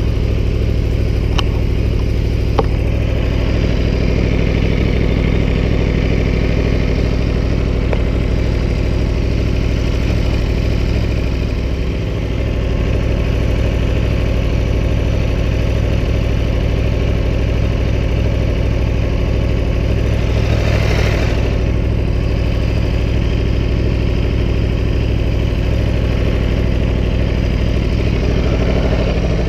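Aprilia Tuono V4 1100 Factory's V4 engine idling steadily. Two sharp clicks come in the first few seconds, and a brief rushing noise about two-thirds of the way through.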